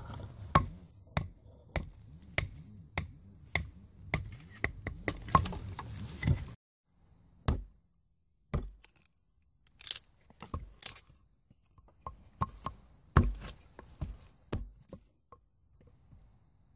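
Hatchet chopping into wood on a log chopping block: a run of about ten sharp strokes roughly half a second apart, then after a short silent break, slower, irregular strokes as a thin stick is split lengthwise.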